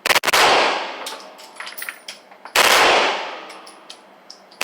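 Three short bursts of automatic gunfire from a select-fire weapon, each ringing out and dying away over about half a second: at the start, about two and a half seconds in, and at the end. Spent brass casings clink on hard surfaces between the bursts.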